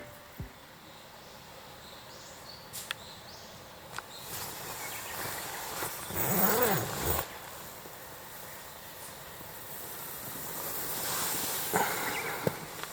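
Outdoor ambience with a steady hiss, a few faint clicks, and a brief louder sound with a bending pitch about six seconds in.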